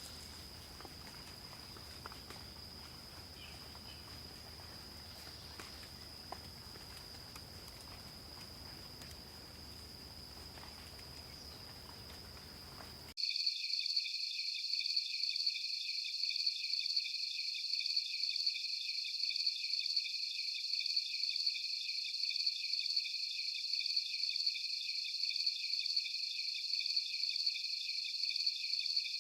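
Night insect chorus. First a steady high-pitched buzz over faint hiss; about halfway through it cuts suddenly to a louder, rapidly pulsing chirping of crickets.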